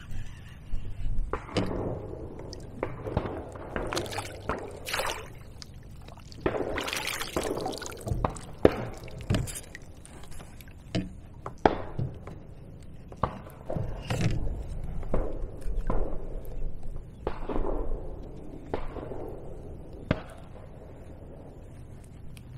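Water splashing and dripping as a hooked largemouth bass is played and landed in a net at the side of a kayak, with scattered sharp knocks throughout.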